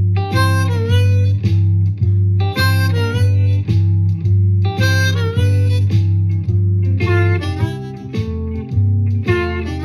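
C diatonic harmonica playing blues licks in second position (key of G) over a guitar-and-bass shuffle backing track. The harmonica repeats a short phrase about every two seconds, with bent notes sliding down and back up in pitch.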